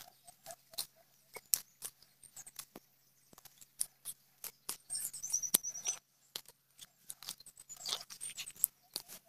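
A small hand knife scraping and cutting into soil and grass, with grass being pulled by hand: irregular crunching clicks and short scrapes.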